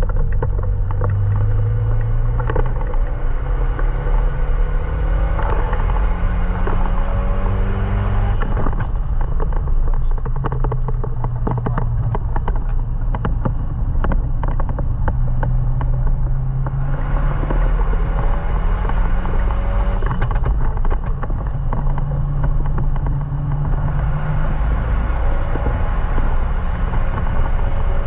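Renault Mégane Sport 225's turbocharged 2.0-litre four-cylinder engine under hard acceleration on a wet track: the revs climb and then drop back with each gear change, several times, over a steady hiss of wet tyres and road noise.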